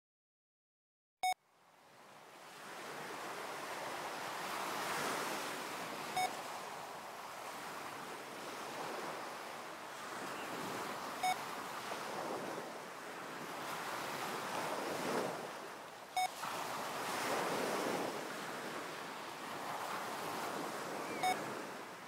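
Sea waves washing on a shore, fading in after a moment of silence and then swelling and ebbing in slow surges, with a short beep every five seconds, five in all. The beeps pace the breathing for a heart coherence exercise at six breaths a minute, each one marking the switch between breathing in and breathing out.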